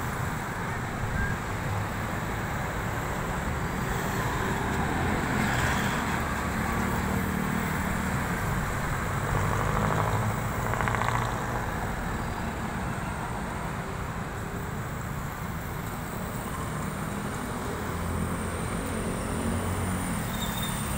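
Steady road traffic noise: car engines and tyres on a city street, swelling a little about ten seconds in as a car goes by.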